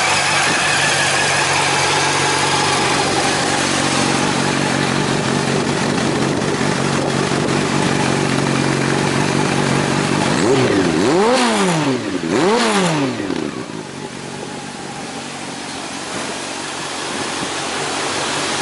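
Motorcycle engine running through an aftermarket Yamamoto Racing silencer: it idles steadily, is revved twice in quick succession about ten seconds in, each rev rising and falling in pitch, then settles back to idle.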